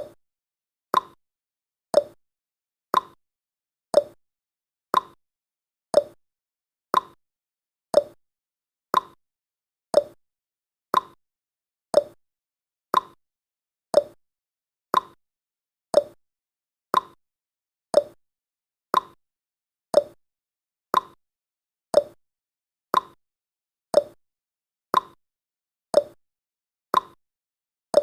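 Clock-tick sound effect of a countdown timer: one short, sharp tick every second, with silence between the ticks.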